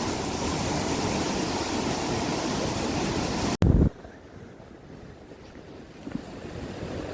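Steady rushing noise of storm wind and rain on the microphone. About halfway through it cuts off abruptly with a brief loud low thump, then goes on much quieter.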